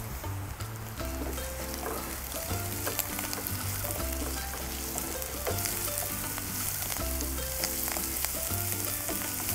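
Brinjal frying in oil in a pan with onion and garlic, sizzling steadily with scattered crackles. A light background music track with a stepping bass line plays under it.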